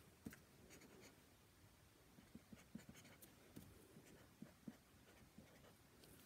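Faint scratching of a felt-tip marker on paper as a signature is hand-lettered, in short, irregular strokes.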